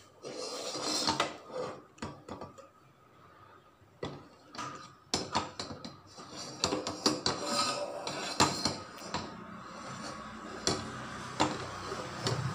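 Empty metal pressure cooker being handled and set on a stovetop: irregular metal clinks, knocks and scraping, busiest in the second half.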